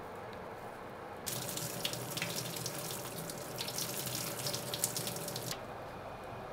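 Water poured from an electric kettle over fried tofu pouches in a plastic colander, splashing through into a stainless-steel sink, to rinse off the pouches' excess oil. The pour starts about a second in and stops after about four seconds.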